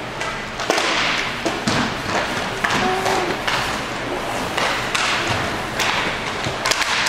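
Hockey play on the rink: repeated scraping bursts from skates, with sharp clacks and thuds from sticks and puck, the loudest a few knocks around one and a half seconds in and near the end.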